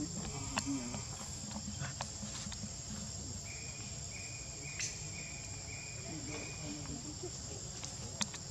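Insects droning steadily at a high pitch, with a short run of repeated chirps midway and a few sharp clicks.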